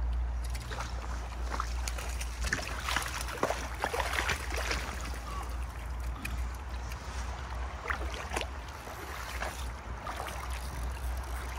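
Shallow river water splashing and trickling as a hooked trout is played and drawn to a landing net, with scattered short splashes over a steady low rumble of wind on the microphone.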